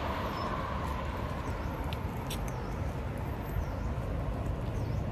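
Steady street traffic noise with low rumble, as of wind on the microphone, and a few faint mouth clicks from chewing gum while a black gum bubble is blown.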